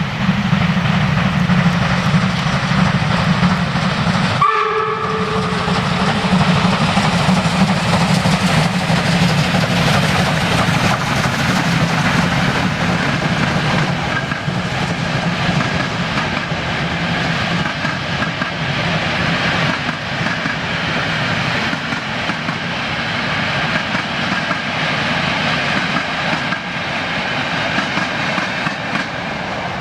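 Class 52 steam locomotive 52 1360 working hard with its train, a continuous loud rumble and chuffing together with the rolling of the train over the rails. About four seconds in, the sound breaks off for a moment and a short whistle tone follows.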